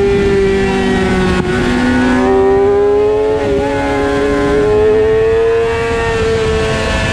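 Suzuki GSX-R600 inline-four racing engine running hard at high revs, its pitch climbing slowly, with a brief break about one and a half seconds in. Wind rush on the bike-mounted microphone underneath.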